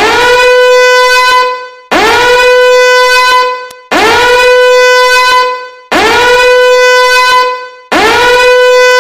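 Loud emergency alert tone: a horn-like blast repeated five times, each about a second and a half long and starting every two seconds, sliding up in pitch at its start and then holding one steady note.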